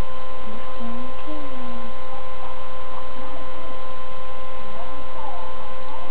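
Loud steady hum made of several fixed tones over a low rumble, unchanging throughout. Faint voice sounds come and go beneath it.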